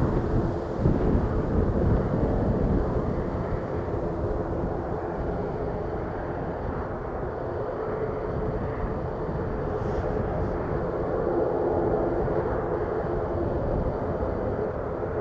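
Jet airliner engines rumbling, with wind gusting on the microphone in the first few seconds. A steady engine hum grows stronger in the second half.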